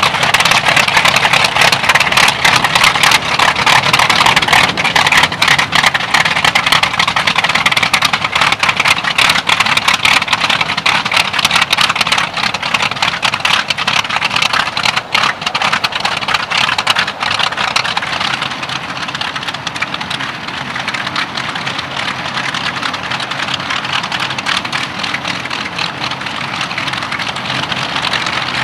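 The two Bristol Hercules 14-cylinder sleeve-valve radial engines of a Bristol Freighter run together with their propellers as the aircraft taxis. The sound is loud at first and eases off a little from about two-thirds of the way through as the aircraft moves away.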